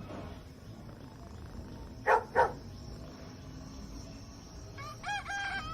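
A dog barks twice in quick succession about two seconds in. Near the end a long, pitched animal call begins, held on steady tones.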